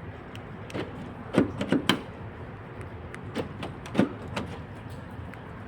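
Door locks and latches of a 2010 Volkswagen Transporter van clicking and clunking as the doors are tried with a newly made key: about six separate sharp clicks over the first four seconds.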